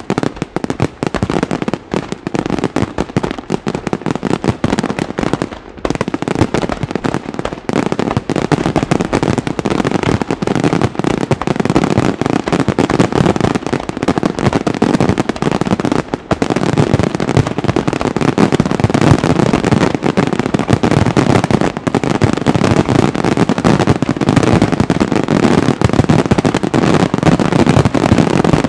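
Dense barrage of aerial firework shells bursting in rapid succession, the reports running together without a break; it grows louder and fuller about eight seconds in.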